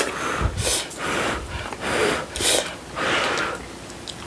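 Kalguksu noodles slurped up from a bowl of soup in a run of about five airy slurps.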